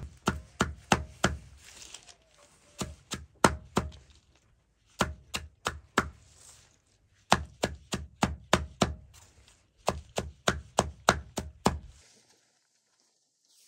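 A knife chopping food on a cutting board: quick runs of sharp strikes, about three a second, broken by short pauses. The chopping stops near the end.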